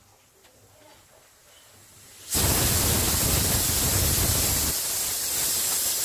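Stovetop pressure cooker letting off steam through its whistle: a loud, steady hiss that starts suddenly about two seconds in and carries on for about four seconds, with a deeper rumble in its first half.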